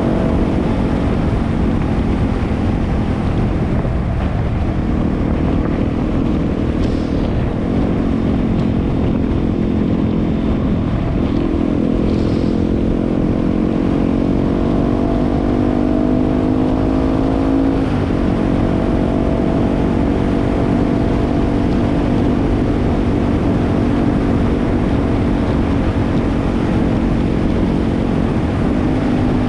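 Yamaha WR250R's 250 cc single-cylinder four-stroke engine running under way. Its note dips briefly several times with throttle changes and climbs slowly in between, over a steady low noise.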